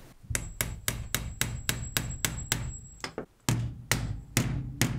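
Hammer and chisel striking the ultrasonically welded seam of a small plastic USB charger case to crack it open: quick light taps at about four a second, then after a brief pause a few slower, harder blows.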